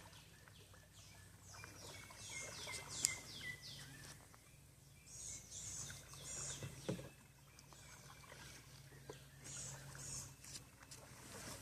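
A bird singing in repeated series of high, falling chirps, with a single sharp click about three seconds in.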